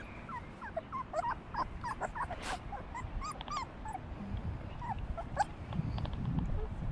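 Four-week-old puppy whimpering in a quick run of short, high squeaky cries, thinning out after about four seconds.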